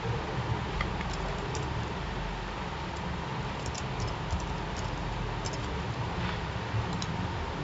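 Typing on a computer keyboard: an irregular run of light key clicks over a steady background hiss.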